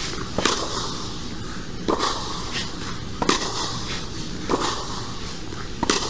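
Tennis rally on a clay court: sharp pops of a Wilson Ultra 100 v4.0 racquet strung with Luxilon ALU Power and the partner's racquet striking the ball, with the ball bouncing on the clay in between, a pop about every second and a half, five in all. A steady background noise runs underneath.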